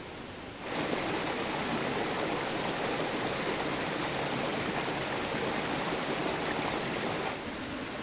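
Shallow rocky stream rushing and babbling over small cascades, a steady watery hiss. It gets suddenly louder about a second in and drops back about a second before the end.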